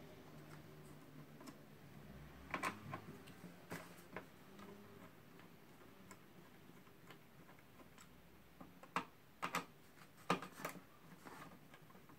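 Light metallic clicks and ticks of a screwdriver working small screws out of the CPU socket's retention bracket on a motherboard. They come irregularly, with a few sharper clicks about two and a half seconds in and a louder cluster about nine to eleven seconds in.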